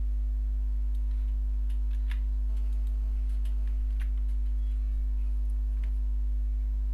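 A steady low hum with a row of fainter steady tones above it, and a handful of faint, scattered clicks from a computer mouse and keyboard as text is copied and pasted.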